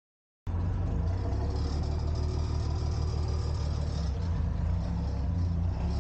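An engine running steadily at an even speed; the sound cuts in abruptly about half a second in after silence.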